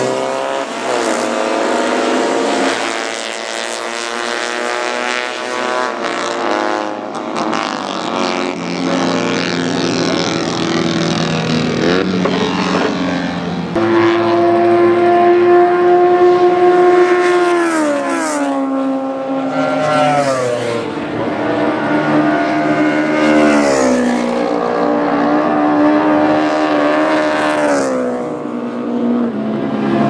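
Engines of a field of classic racing sidecar outfits accelerating hard away from a race start, several notes climbing together. From about halfway through, one engine note is louder and holds steady pitches that drop back several times.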